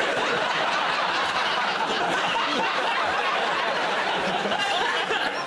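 Studio audience laughing, a sustained crowd laugh that holds at a steady level.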